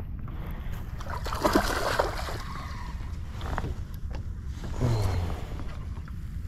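Steady wind and water noise around an open fishing boat, with brief rustling and knocking from handling the rod while a small hooked bass is played. A short burst of noisier sound comes about a second and a half in, and a brief low sound near five seconds.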